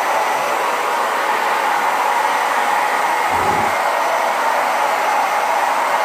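Twister Salon Tech hand-held hair dryer running steadily, a continuous rush of air blowing on a wet dog. A brief low bump comes about halfway through.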